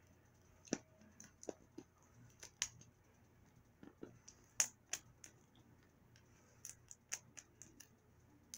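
Plastic toy packaging being worked open by hand. It makes a scattered series of small, sharp, irregular clicks and crackles.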